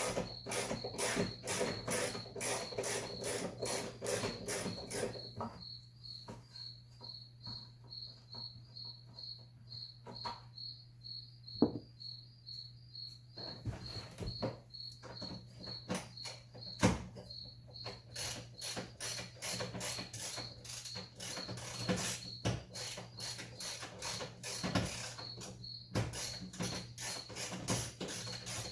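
Cricket chirping steadily at a high pitch throughout, over a low steady hum. A hand ratchet clicks rapidly in stretches, for the first few seconds and again through much of the second half, undoing the duct bolts. Two sharp knocks fall in between.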